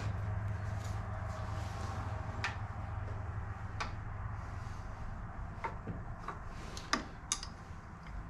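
A few sharp, irregularly spaced metallic clicks and taps as hand tools and engine parts are handled on an old motorcycle engine, over a steady low hum. The two loudest clicks come close together near the end.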